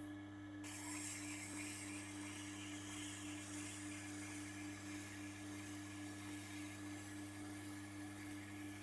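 Electric sharpening machine's motor humming steadily while a Victorinox kitchen knife's steel blade is drawn across the spinning grinding wheel, a faint grinding hiss coming in just under a second in.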